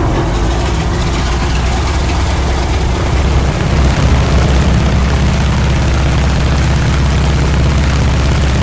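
Piston engines of a four-engined propeller flying boat running steadily, a loud low drone under a noisy rush.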